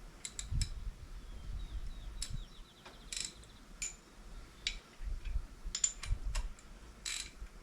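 Hand tools clicking and tapping on metal while working at the motorcycle's oil plugs: scattered sharp clinks with a short metallic ring, a quick run of faint ticks about two seconds in, and low bumps.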